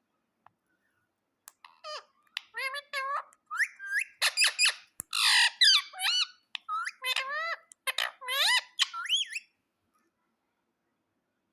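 Pet parrot calling: a run of squawks and chattering calls that glide up and down in pitch, with one harsher, noisier squawk midway. The calls stop about two seconds before the end.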